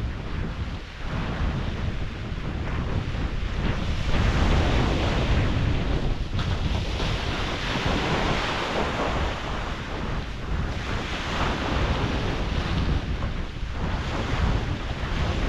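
Sea waves washing onto a beach in surges that swell and ease every few seconds, with wind buffeting the microphone.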